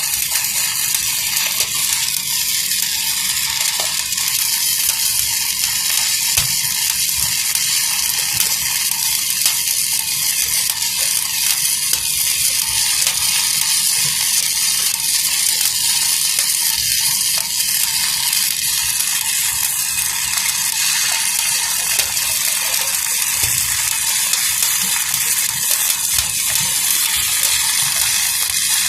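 Electric welding arc burning steadily: a continuous hiss full of fine crackles.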